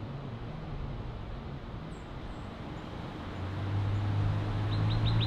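City street ambience: a steady traffic hiss with a low engine hum that swells about three seconds in. A few faint bird chirps, and a quick bird trill near the end.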